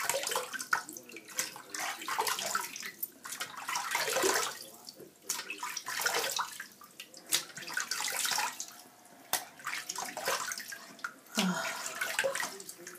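Water running from a tap into a bathroom sink while it is splashed onto the face by hand, in uneven splashes.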